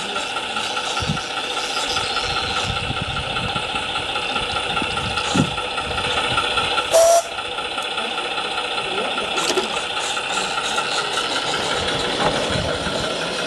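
A 16mm-scale model locomotive hauling a heavy train of loaded wagons runs past, a steady, fast, even rhythmic running sound. A brief, sharp, louder sound comes about seven seconds in.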